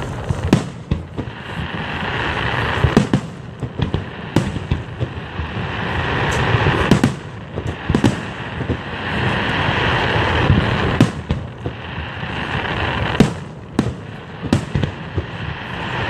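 Aerial fireworks shells bursting at close range: many sharp bangs, some in quick clusters, over a continuous noisy wash that swells and fades every few seconds.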